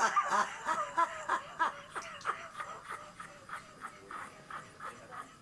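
A man's voice in a fit of short, breathy bursts, several a second at first, slowing and fading away over about five seconds.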